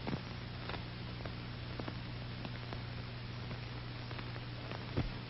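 Steady hiss and low hum with scattered faint clicks and pops: the background noise of an old film soundtrack.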